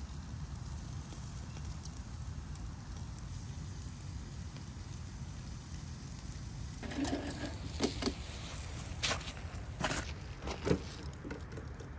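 Chicken and vegetable kebabs sizzling on metal skewers over a charcoal grill, with a low steady rumble. From about seven seconds in come several sharp knocks and clicks.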